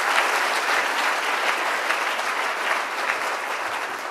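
An audience applauding, steady clapping that begins to fade near the end.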